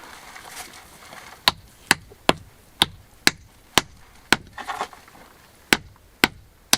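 Hammer tapping stones into a dry-stone and lime-mortar wall, a run of sharp, bright strikes about two a second with a short pause in the middle, packing small stones tight into the joints.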